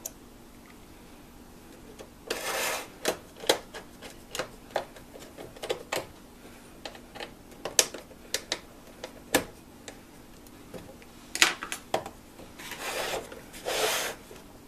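Small screws and a screwdriver clicking and tapping against a filmstrip viewer's case as screws are fitted into its frame. A string of sharp clicks begins about two seconds in, with short scraping rubs around then and again near the end.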